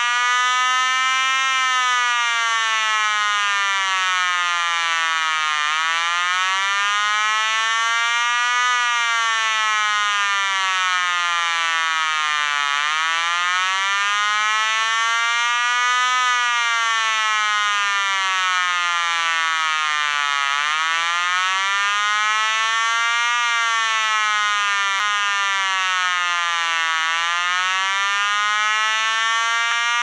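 Homemade 12 V transistor siren circuit (BD139 and TIP147) playing through a large woofer speaker: a loud, buzzy electronic tone wailing slowly up and down in pitch, one rise and fall about every seven seconds.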